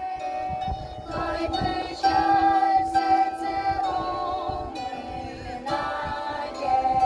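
A bandura ensemble performing: plucked bandura strings under voices singing long held notes together.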